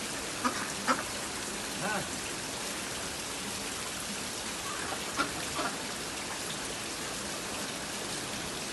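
Steady splashing of a jet of water falling into a shallow duck pond, an even hiss like rain. A few short pitched calls break through about half a second, one and two seconds in, and again around five seconds in.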